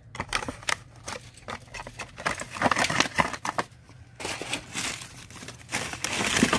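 Crumpled packing paper and plastic wrapping crinkling and rustling as hands dig through a box and unwrap an item, in irregular bursts with a few light clicks.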